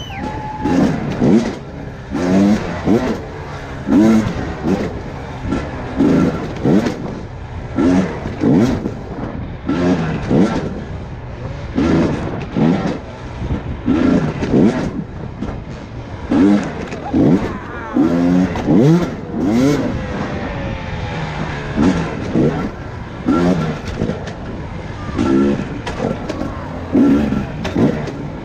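Enduro motorcycle engine revved in short throttle blips about once a second, each rising and falling in pitch, as the bike is ridden slowly over and around log obstacles.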